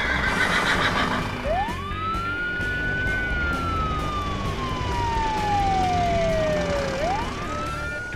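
Emergency-vehicle siren sound effect wailing: one tone sweeps up quickly, falls slowly over about five seconds, then sweeps up again near the end. A horse whinny sound effect dies away in the first second.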